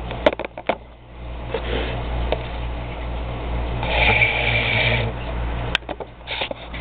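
Air being forced into the water of a small sea monkey tank to aerate it: a continuous bubbling that begins about a second in, is loudest around four seconds in, and stops near six seconds with a sharp click. A few handling clicks come right at the start.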